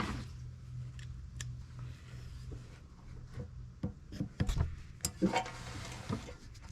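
Small metal engine parts being handled on a workbench: scattered light clicks, taps and rubbing, with a short rustling scrape about five seconds in, over a steady low hum.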